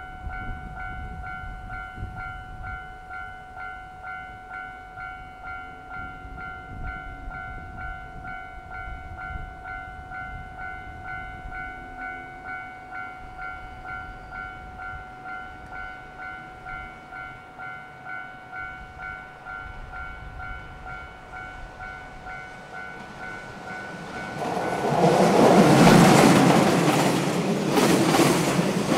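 Japanese level-crossing warning bell ringing in an even, repeating rhythm. About 25 seconds in, a freight train hauled by an EF66 electric locomotive with container wagons arrives and passes loudly, drowning the bell.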